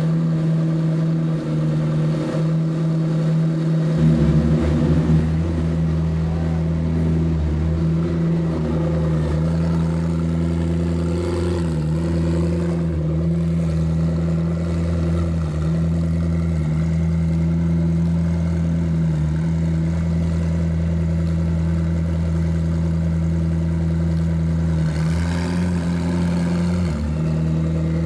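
McLaren P1 GTR's twin-turbo V8 idling steadily, an even low drone with only small wavers in pitch.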